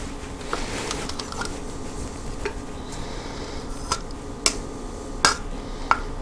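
Metal spoon scraping thick peanut butter out of a plastic measuring cup into a stainless steel mixing bowl, with soft scrapes and several sharp clinks of spoon and cup against the bowl, the loudest about four and a half and five seconds in.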